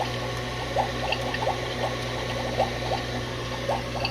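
Toy bubbling cauldron's small pump humming steadily while pushing air through dish-soap solution, with irregular bubbling gurgles a few times a second.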